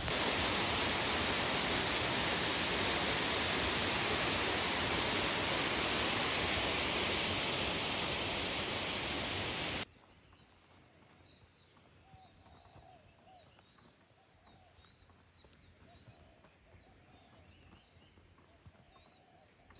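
Steady rushing roar of a waterfall, which cuts off abruptly about ten seconds in. After that, faint birdsong over a quiet background: short falling chirps repeated about twice a second.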